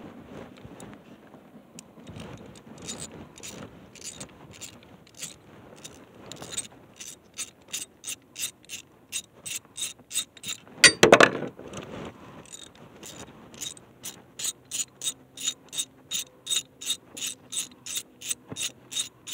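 Hand ratchet wrench clicking as it is worked back and forth to back out the rear axle housing bolts, a run of pawl clicks that grows quicker and more regular, to about two or three a second, in the second half. There is a single louder clunk about eleven seconds in.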